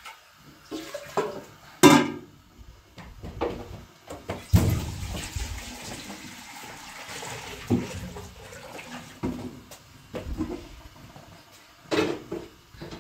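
Water pouring, starting about four and a half seconds in and running for several seconds, with a few sharp knocks before and after.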